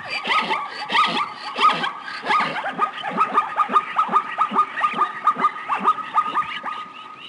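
A rapid series of short animal calls, each falling in pitch, several a second and overlapping, over a steady high tone; the calls fade toward the end.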